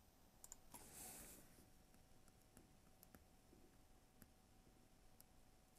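Near silence: room tone with a few faint clicks and a soft scratch about a second in, from a stylus writing on a tablet screen.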